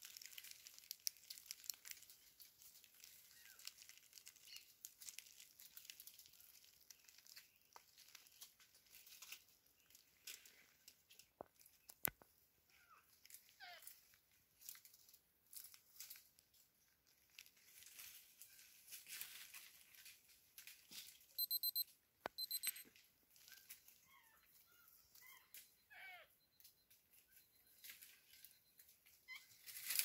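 Faint rustling and crackling of dry leaves and stiff bromeliad leaves as a Geoffroy's spider monkey forages in the leaf litter and picks at Bromelia plumieri fruit. A few faint squeaky chirps come through, and two short runs of high pips sound about two-thirds of the way through.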